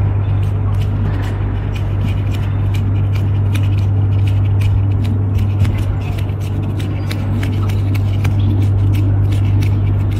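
Canada geese walking on a frozen pond, their feet making many irregular sharp clicks and scrapes on the ice, over a loud steady low hum.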